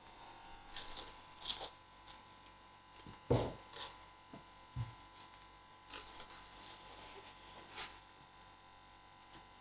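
Plastic cling film pulled off its roll and crinkling as it is stretched over a baking tray of dough, in short scattered rustles, with a soft thump about three seconds in.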